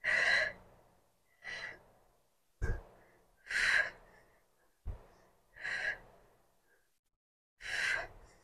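A woman's sharp, breathy exhalations with the effort of repeated kickback exercise, about one every two seconds, five in all. Two short low thumps fall between them.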